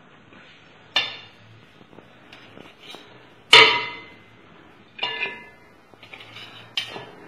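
A metal ladle clinks against an aluminium pot and a ceramic plate as syrup-soaked pieces are scooped out and set down. There are four sharp clinks, each with a brief ring, and the loudest comes about three and a half seconds in, with a few lighter taps between them.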